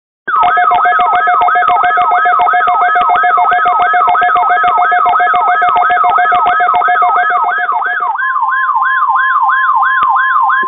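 Weather radio alert tones sounding loud: a siren-like falling sweep repeats about three times a second over steady tones. About eight seconds in, the steady tones give way to a single steady tone under the sweeps.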